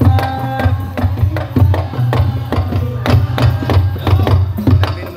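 Drums beaten in a fast, steady rhythm, with deep low strokes pulsing under sharper hits, the percussion of a takbiran procession. A chanting voice is heard briefly at the start.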